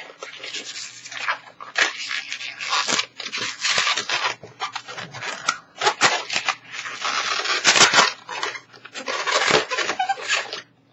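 A 260 latex modelling balloon being twisted into bubbles and ear twists, the latex rubbing against itself and the hands in repeated scratchy bursts.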